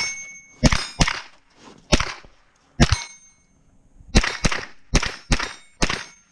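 Semi-automatic rifle fired at steel targets, about nine shots: four spaced out over the first three seconds, then five in quicker succession. The struck steel plates ring on briefly after hits.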